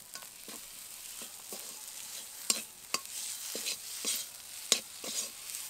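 Stuffing being stirred and scraped in a kadai over a faint sizzle of oil, with a handful of sharp scrapes and clicks of the utensil against the pan. The filling has been fried down nearly dry, so it comes away from the kadai.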